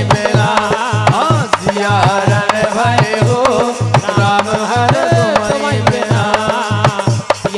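Bundeli desi bhagat devotional song: a man sings the refrain over a fast, steady hand-drum beat, with sharp strikes or claps on the beat.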